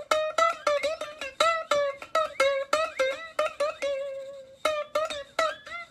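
Background music: a plucked string instrument playing quick notes around one pitch, about four a second, with a short pause about four and a half seconds in.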